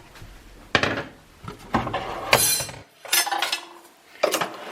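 Metal cookware and utensils clattering in a kitchen: a few separate knocks and clinks, with a brighter rattle or scrape about two and a half seconds in.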